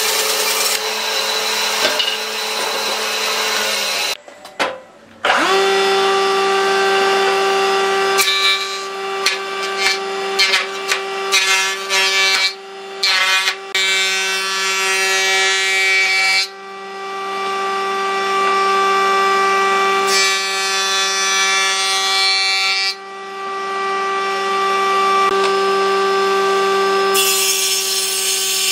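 Electric power tool motor running with a steady high whine while working wood. It stops about four seconds in and spins back up a second later, and its sound breaks up repeatedly as it bites into the wood.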